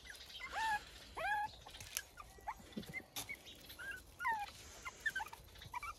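Young puppies whimpering: a string of short, high-pitched squeaky cries, most of them rising in pitch, coming every half-second or so.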